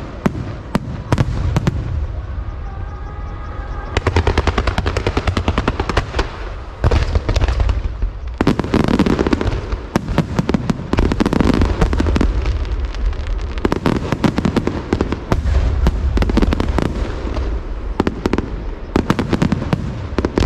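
Aerial fireworks display: a near-continuous run of crackling reports and low booms from shells bursting overhead. It gets denser and louder about four seconds in.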